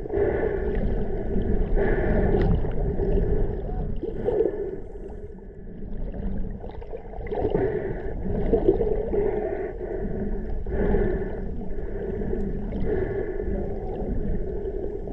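Muffled underwater sound picked up by an action camera in its housing: water moving and bubbling, with a steady low hum and swells every few seconds.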